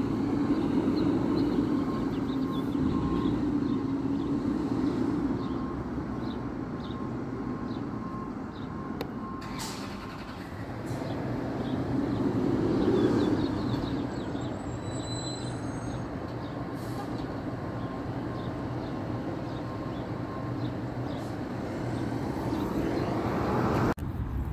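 Garbage truck's engine running down the street, a steady rumble that swells about halfway through, with faint repeated beeping.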